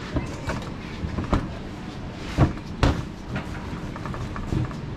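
Scattered sharp knocks and clatter on a stainless-steel worktable as dough is dusted with flour and rolled out with a wooden rolling pin, the two loudest a little under half a second apart past the middle, over steady background noise.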